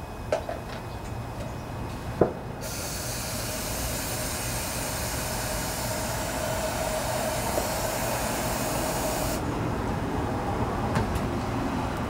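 A long, steady hiss of pressurized spray on the carburetor parts being cleaned. It starts about two and a half seconds in and cuts off sharply some seven seconds later. Two sharp clicks come before it, and another near the end.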